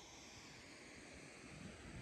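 Near silence: a faint, even rushing hiss that swells slightly near the end.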